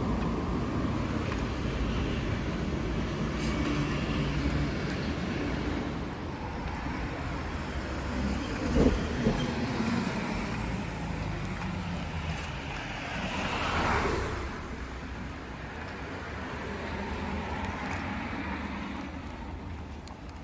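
Steady rumble of road traffic, with a couple of short knocks about nine seconds in and a louder swell near fourteen seconds, like a vehicle going by.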